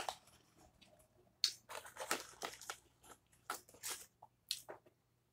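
A cardboard fast-food nugget box being handled and opened, with nuggets picked out of it: a run of irregular crackles and crunches starting about a second and a half in.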